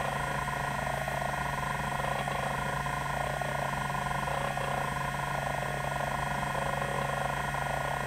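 TEAC SD-510 10 MB hard drive's band stepper actuator seeking back and forth in a sweeping test pattern: fast, continuous stepping over the steady hum of the 3600 RPM spindle.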